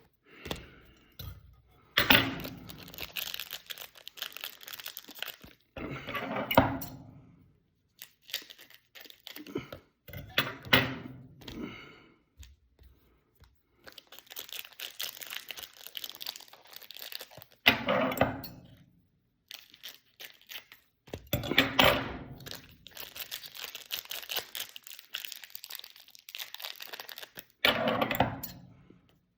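Trading-card packs being opened: wrappers tearing and crinkling in bursts of a few seconds with pauses between, and now and then a light knock as the cards are handled.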